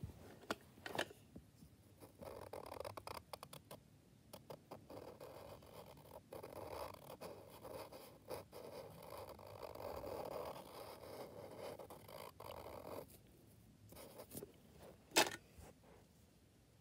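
Felt-tip marker rubbing on paper in short, rapid strokes for about eleven seconds, colouring in a small solid shape. A few sharp clicks come before the scratching, and one loud sharp click comes near the end.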